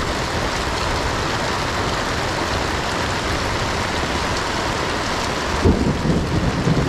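Heavy rain falling in a steady hiss during a thunderstorm, with a rumble of thunder swelling in near the end.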